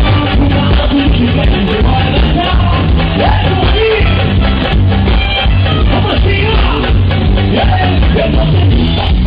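Carnival band playing loud music with a heavy, steady bass line and a singing voice over it.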